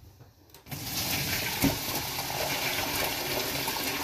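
Hot vegetable stock being poured from a pot into a glass jar: a steady stream of liquid splashing and filling. It starts about two-thirds of a second in and keeps an even level.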